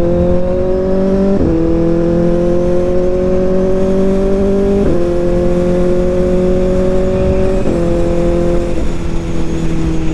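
Kawasaki Ninja ZX-4RR's 399 cc inline-four engine through an SC Project slip-on exhaust, accelerating with its pitch climbing slowly and dropping suddenly at upshifts about one and a half, five and seven and a half seconds in, then easing off near the end.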